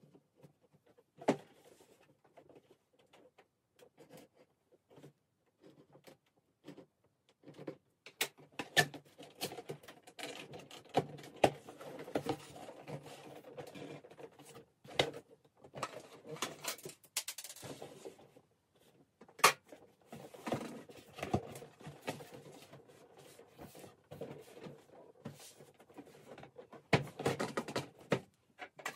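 A cardboard shipping box being handled and opened: irregular scraping, rustling and knocks of the cardboard. Sparse taps for the first several seconds, then busier handling from about eight seconds in.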